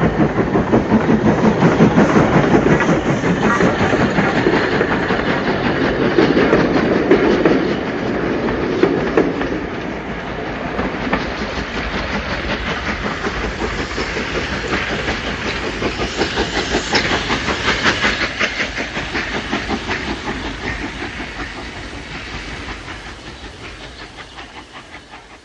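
Adams Radial 4-4-2T steam tank locomotive working, with a quick, steady exhaust beat and steam. It fades away over the last few seconds, then cuts off.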